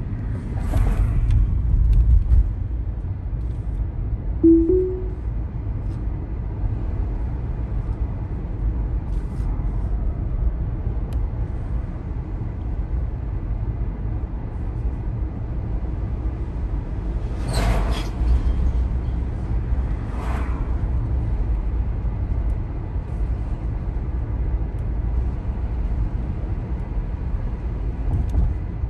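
Steady low road and tyre rumble inside a Tesla's cabin as it drives along. A short two-note chime from the car sounds about four seconds in, and a couple of brief sharp knocks come about two-thirds of the way through.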